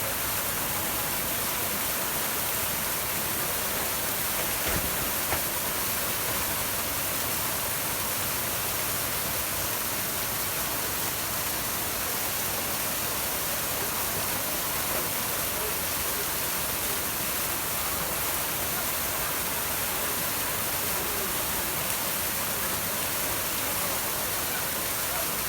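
Falling water rushing steadily from a waterfall or fountain, an even, unbroken hiss that does not change.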